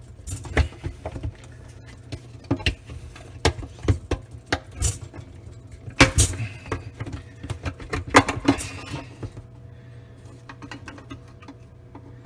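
Irregular plastic clicks and knocks of a dishwasher spray arm motor assembly being handled, pulled out and pushed back into its seat, with the two loudest knocks about six and eight seconds in. A steady low hum lies under them.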